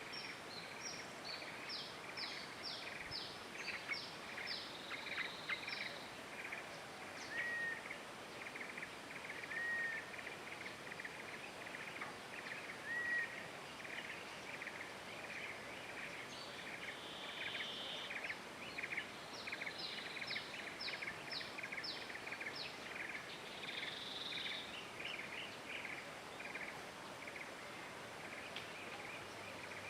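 Outdoor natural ambience: a steady background hiss with runs of quick, high, ticking chirps at about two a second and a short whistled bird call every few seconds.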